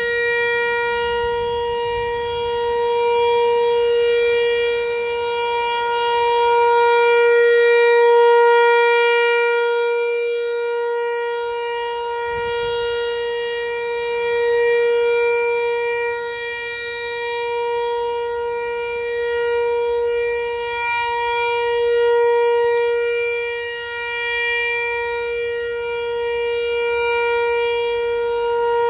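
Outdoor tornado warning siren sounding one steady, unwavering tone, its loudness slowly swelling and fading every several seconds.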